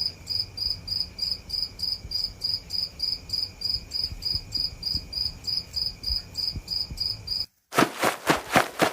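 Crickets chirping in an even pulse about four times a second, the classic comic 'crickets' sound effect. About seven and a half seconds in it cuts off abruptly and gives way to a quick run of sharp taps.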